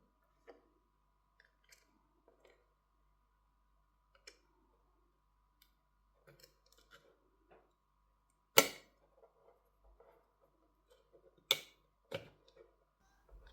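Small repair tools clicking and tapping against the internals of a Motorola G60 phone while the motherboard is being worked loose: faint scattered clicks, with three sharper clicks in the second half. A faint steady hum runs underneath.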